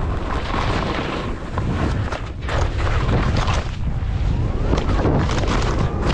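Skis scraping and chattering over snow while wind buffets the skier's body-mounted camera microphone, a heavy rumble with short rough scrapes through it.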